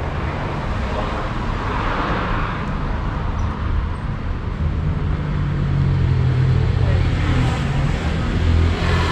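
City street traffic noise, with a car's engine running close by from about halfway through.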